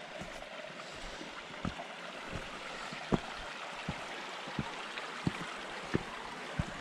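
Hiking footsteps on rock, a thump roughly every two-thirds of a second, over the steady rush of a small stream.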